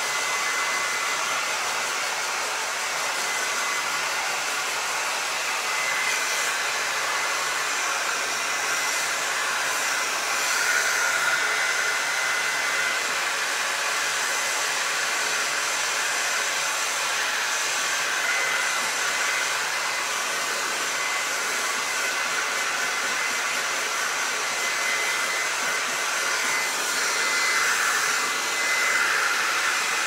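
Handheld hair dryer running steadily to blow-dry wet paint: an even rush of air with a faint steady whine, swelling slightly louder a couple of times.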